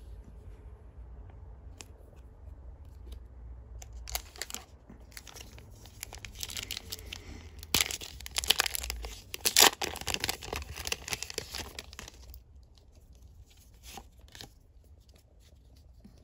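A foil booster pack wrapper is torn open by hand, crinkling and crackling. It starts about four seconds in, is loudest in the middle and dies down after about twelve seconds.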